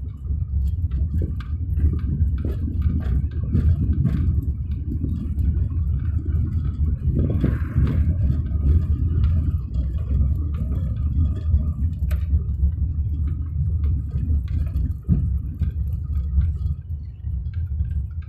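Car driving over a rough unpaved track: a steady low rumble with frequent small knocks and rattles, and a brief hissing burst about seven seconds in.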